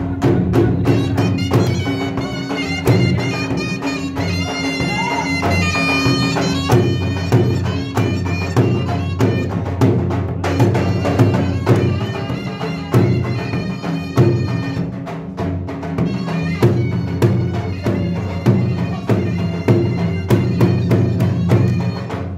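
Traditional Pashtun dance music for an attan-style circle dance: a shrill, bagpipe-like reed pipe playing a melody over a steady, driving drum beat.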